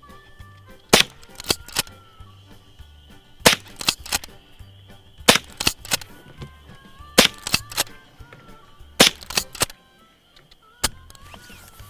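A Ruger 96/22 lever-action .22 rimfire rifle firing about six shots, roughly two seconds apart, each sharp crack followed by two quieter clicks as the lever is worked to chamber the next round. Soft background music plays underneath.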